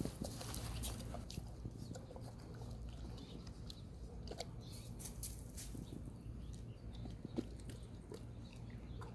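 A dog chewing a piece of dog ice cream, with irregular small crunches and wet clicks, over a steady low hum.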